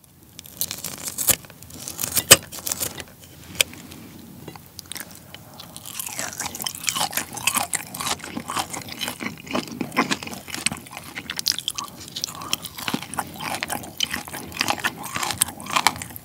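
Kitchen scissors snipping through grilled pork belly: a few sharp clips in the first few seconds. Then a steady run of close-miked chewing and crunching sounds.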